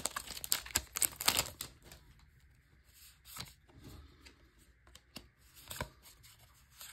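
Magic: The Gathering booster pack and cards being handled: a dense run of crinkling and tearing in the first two seconds, then scattered soft clicks and rustles as the cards are slid and shuffled.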